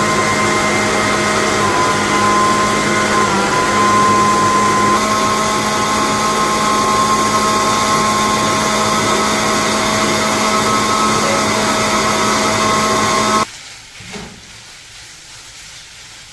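Electric blender motor running steadily while blending garlic paste, its pitch shifting slightly a few times, then switched off abruptly near the end.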